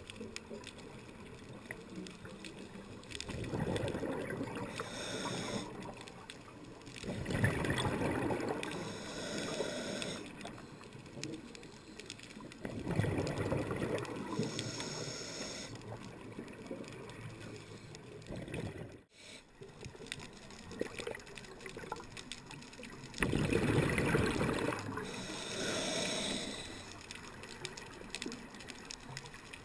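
Scuba diver's regulator breathing heard underwater through a waterproof camera housing: bursts of exhaled bubbles rumbling every few seconds.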